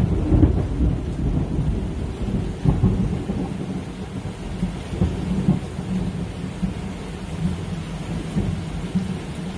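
Thunder during a heavy rainstorm: a loud clap at the very start rolls into a long low rumble that swells and fades in waves, over the steady hiss of rain.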